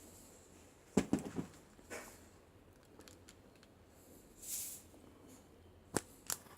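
Clicks and snaps of a self-adjusting wire stripper being worked on a stranded two-conductor wire: a sharp snap about a second in followed by a few lighter clicks, a brief rustle, and more sharp clicks near the end.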